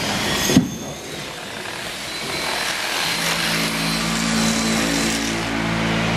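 A power tool's electric motor running at a steady pitch, coming in about three seconds in, after a sharp click and a stretch of workshop noise.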